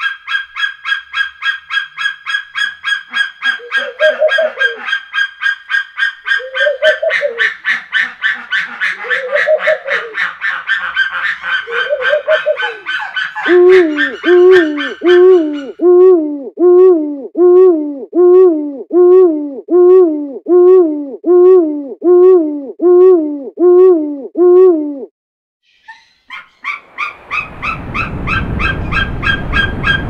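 Bald eagle's rapid, high-pitched chattering chirps, with lower hooting calls from a Eurasian eagle owl every few seconds. About halfway the eagle stops, and the owl's lower calls repeat a little more than once a second for about ten seconds. After a short gap the eagle's chirps return, with wind blowing near the end.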